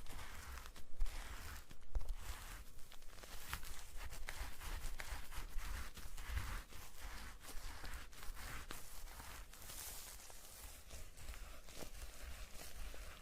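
Close-miked ASMR trigger sounds: a soft scratchy rustle broken by many small clicks, with low handling thumps underneath.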